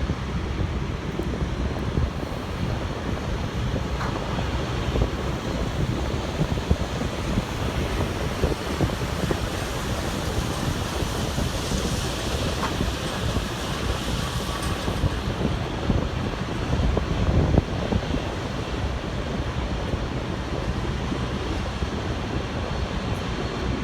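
Wind buffeting the microphone outdoors: a steady rumbling noise with no clear engine or motor tone.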